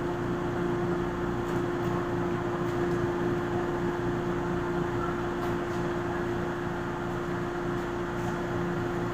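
Steady mechanical hum with one constant tone over an even whir, holding unchanged throughout.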